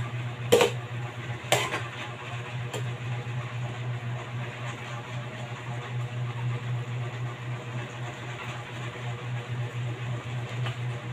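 A metal ladle knocks against the rim of a metal wok three times in the first few seconds while stirring greens in broth, over a steady low hum.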